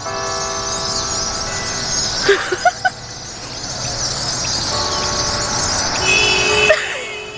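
Car horn sounding in two long steady blasts, about two seconds each, the second starting a little after halfway, over the dense chattering of a large flock of birds.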